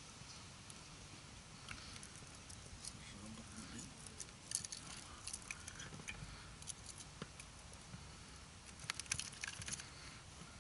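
Faint scattered clicking and rustling, busiest about halfway through and again near the end.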